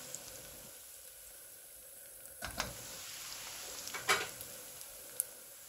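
Chopped onions sizzling steadily in hot oil in a kadai as they are browned, with two brief knocks about two and a half and four seconds in.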